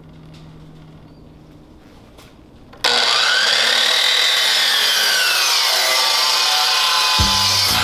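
Power saw cutting through wood: it starts suddenly about three seconds in and runs for about five seconds, its pitch rising and falling as the blade works through the cut. Music with a low beat comes in near the end.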